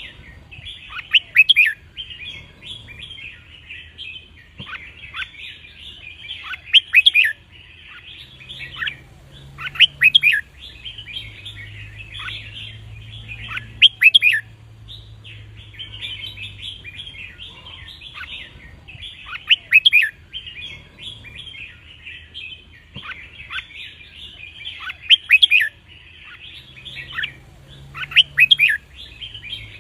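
Red-whiskered bulbul song: loud, quick whistled phrases about every three to six seconds over steady, softer chirping.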